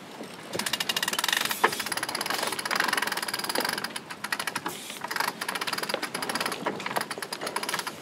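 Winch being cranked to hoist a headsail up the roller-furler foil: a fast, steady run of ratchet-pawl clicks, pausing briefly about four seconds in and again near the end.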